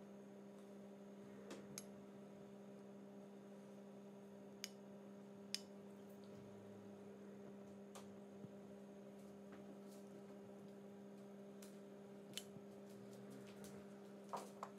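Near silence: a steady low hum, with a few faint, short clicks of a metal spoon touching a ceramic plate as sauce is spooned over the fish.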